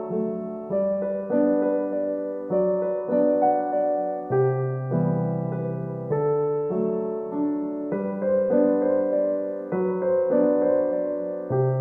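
Background music: a gentle piano melody, notes and chords changing about every half second to a second.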